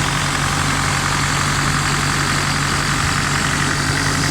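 A freshly rebuilt car engine idling steadily.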